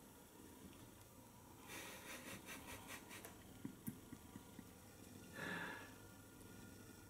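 Faint sounds of kittens play-fighting on a fleece blanket: a quick run of scratchy rustles as claws and paws rake the fabric, two soft knocks, and a short breathy puff about five seconds in.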